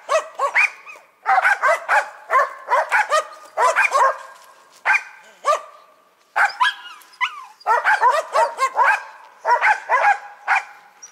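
Karelian-Finnish laikas (Finnish spitz) barking at a marten holed up in its tree nest. The barks are high-pitched and rapid, several a second in runs, with short pauses between the runs.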